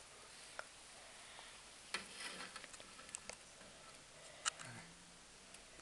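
A quiet room with a few sharp clicks and soft rustles from a phone being handled; the loudest come about two seconds in and again after four seconds.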